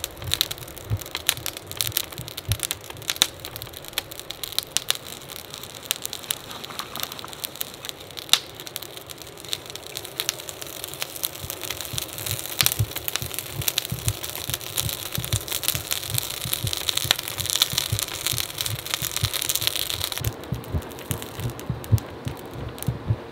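Forge fire crackling and popping with dense sharp snaps while a hand-worked bellows blows air into it. About 20 seconds in the bright crackle drops away, leaving duller low knocks.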